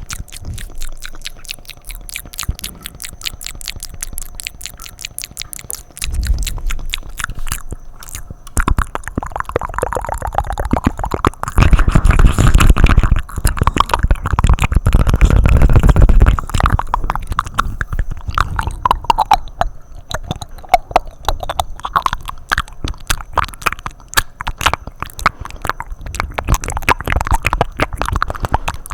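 Close-up ASMR wet mouth sounds: a fast, continuous stream of wet clicks, smacks and tongue flutters right at the microphone, louder and fuller for a few seconds in the middle.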